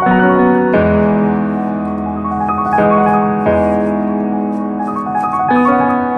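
Background piano music: sustained chords and notes that change every second or two.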